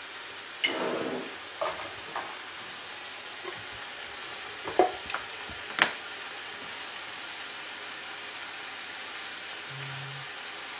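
Onions and aubergine frying in oil in a large stainless steel pot, giving a steady sizzle. A few sharp clicks and knocks of utensils or containers come in the first half, the loudest two about five and six seconds in.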